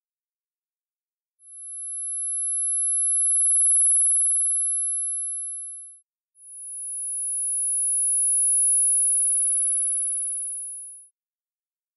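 High-pitched pure sine tones around 10 to 11 kHz, synthesized as tinnitus neuromodulation sounds: two steady tones of about five seconds each that swell up and fade out, with a short gap between them. A second, slightly lower tone joins in the middle of each.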